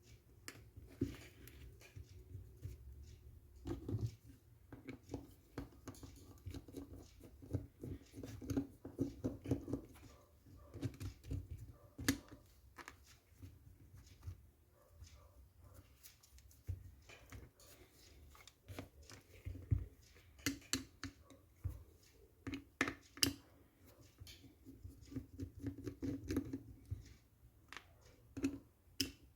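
Hands working on the parts of a disassembled airsoft M14: irregular small clicks, taps and scraping as pieces are handled and rubbed.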